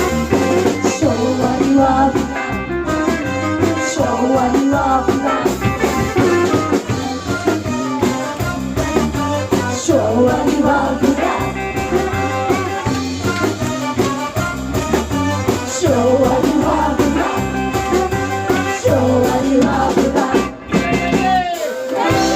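Live band playing an upbeat rock-and-roll number with a singer, drum kit and guitar over a steady beat. Near the end the music breaks off for a moment, then a long held chord begins.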